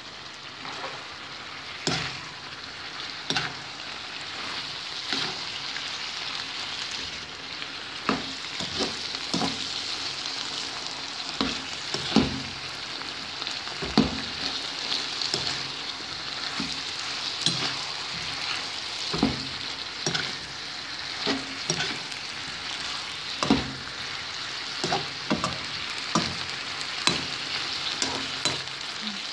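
Lamb liver with onions and peppers sizzling in oil and sauce in a non-stick wok while being stirred. A utensil scrapes and knocks against the pan every second or two.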